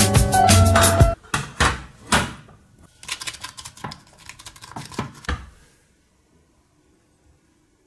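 Background music that stops about a second in, followed by a table knife scraping and tapping across the burnt, crusty top of a cassava cake in a glass baking dish, in short irregular strokes. It goes near silent about two-thirds of the way through.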